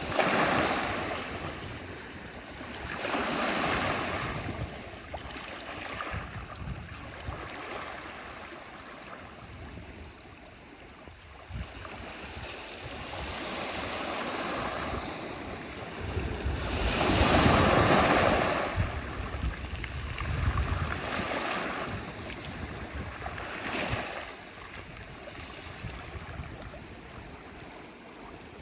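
Sea waves breaking and washing on the shore, the surge swelling and ebbing every few seconds, with the biggest break about seventeen seconds in.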